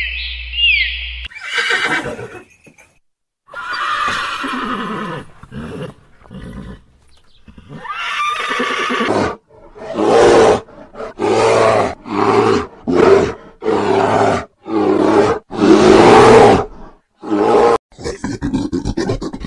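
Horses neighing and whinnying. Several separate calls come in the first half, then a string of loud, repeated neighs about a second apart in the second half.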